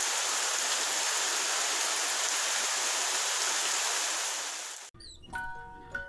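Steady rain falling, an even hiss, that fades and stops about five seconds in; then light music with glockenspiel-like struck notes begins.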